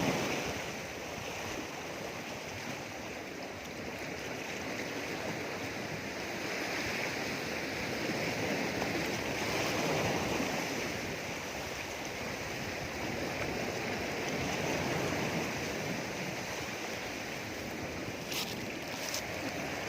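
Sea waves washing around rocks: a steady rush of surf that swells and eases every few seconds. Two short clicks come near the end.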